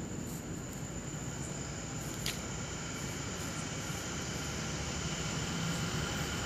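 Steady background hiss with a thin, high, steady tone and one short click about two seconds in; no yowling or hissing from the cats.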